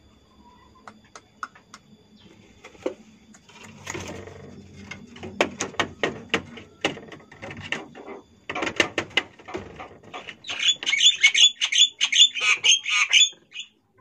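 Javan myna giving a fast run of short calls, about four a second, for about three seconds near the end. Before that come clicks and rustling as a bird works dry grass nesting material in a wooden nest box.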